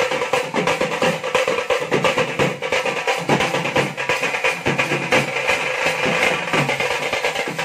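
A band-party drum ensemble playing a fast, continuous rhythm together: barrel drums beaten with sticks, a snare-type side drum and a large steel-shelled drum, with jingling metal hand percussion on top.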